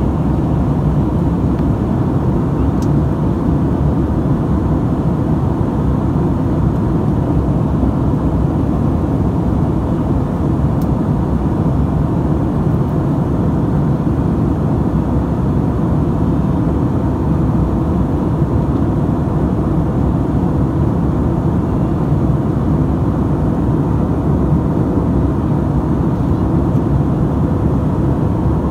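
Jet airliner cabin noise in flight: a steady, loud rumble of engines and airflow heard inside the cabin, with a faint steady hum.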